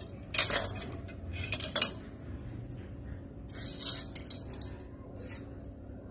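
Steel kitchen knives clinking and scraping against one another and the tile floor as they are handled and set down, in a few short clatters, the loudest about two seconds in.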